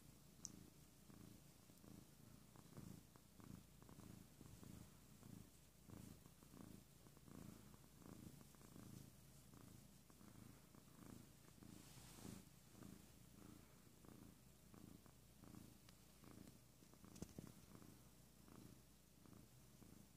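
Calico cat purring quietly while being stroked: a low, steady purr that swells and fades in regular cycles, a little more than one a second.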